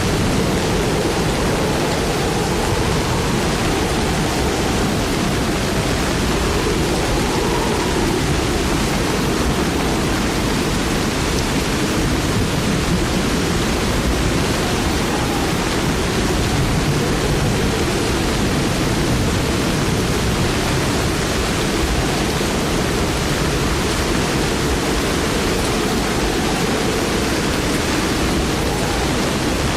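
Steady, loud rushing noise that never lets up, with faint wavering tones drifting through it.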